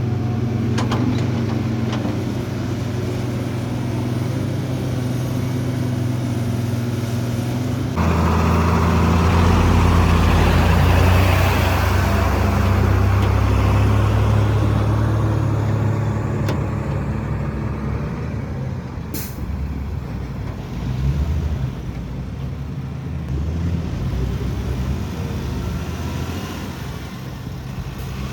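Heavy diesel construction machinery running steadily. About eight seconds in it gets suddenly louder with a rush of noise that fades over the next several seconds, and a little past the middle there is a short sharp hiss.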